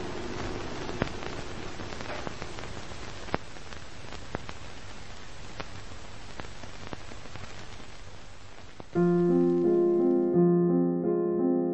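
Vintage-film surface noise: a steady hiss with scattered clicks and pops. About nine seconds in, a much louder piano tune begins, moving in short, evenly spaced notes.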